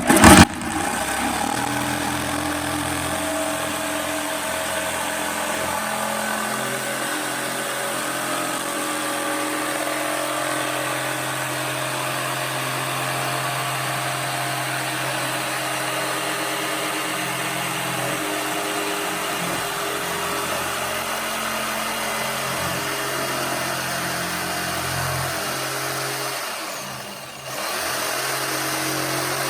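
Black and Decker jigsaw cutting through a clamped wooden board, its motor and blade running steadily with a wavering pitch. Near the end the saw slows and dips briefly, then picks up again.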